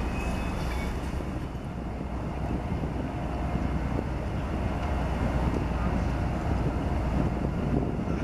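Wind buffeting the microphone outdoors: a steady low rumble with no distinct events.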